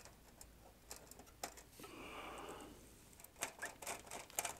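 Faint light clicks and taps of small hand tools against wire during bench soldering work, with a soft hiss about two seconds in and a quick run of sharper clicks near the end.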